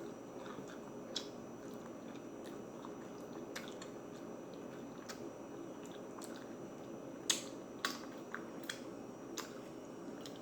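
A person chewing a barbecued turkey leg with wet mouth smacks and clicks. The smacks come in a louder cluster about seven seconds in.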